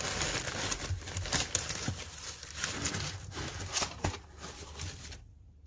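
Crumpled packing paper crinkling and rustling, with small clicks and rubs, as hands dig a plastic deli cup out of a box packed with paper and styrofoam. The rustling thins out after about four seconds and goes quiet near the end.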